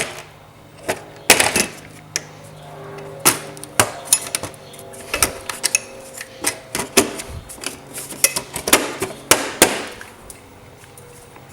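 Irregular clicks and knocks of hand tools and metal and plastic parts being handled while hose clamps and cone air filters are fitted, over a faint steady hum.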